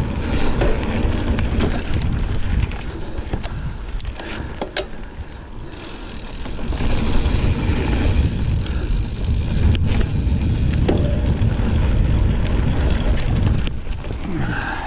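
Mountain bike riding over a dirt singletrack: wind buffeting the microphone and tyres rolling on the trail, with several sharp clicks and knocks as the bike jolts over rough ground. The riding noise drops for a moment about halfway through, then picks up again.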